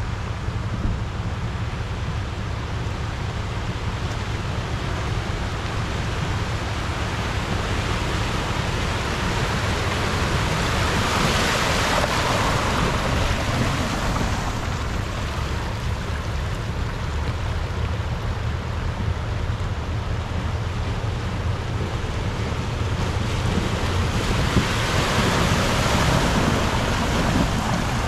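Four-wheel-drive vehicle running along an off-road track: a steady low rumble of engine and tyres under an even rushing noise, which swells twice, about eleven seconds in and again near the end.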